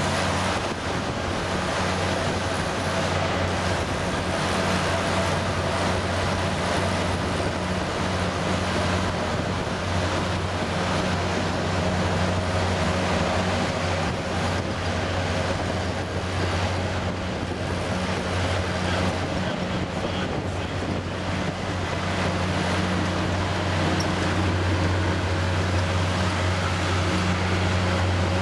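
Auto rickshaw engine running steadily through a hole-riddled exhaust, a loud low growl echoing off the tunnel walls.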